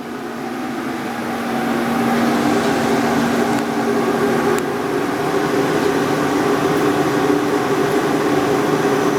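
Clausing Metosa variable-speed lathe starting and running: the spindle drive winds up over about the first two seconds, then runs with a steady mechanical hum and a constant whine.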